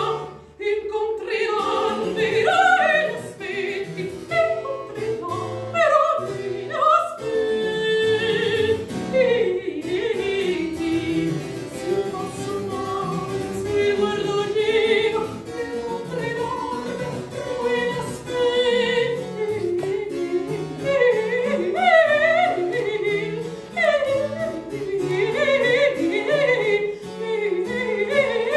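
Classically trained soprano singing a Baroque aria, with long held notes carrying a wide vibrato in the middle and quicker ornamented passages near the end, over a keyboard accompaniment.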